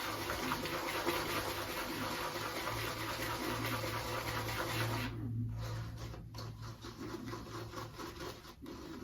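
Shaving brush being swirled in soap in a bowl, a wet, rapid scratchy swishing that thins out and turns patchy about five seconds in. The lather is still thin and watery from a heavy dose of coconut water.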